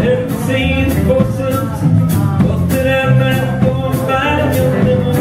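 Live country-rock band playing an instrumental passage: Telecaster-style electric guitar, a second electric guitar, strummed acoustic guitar and a drum kit keeping a steady beat of about two strokes a second.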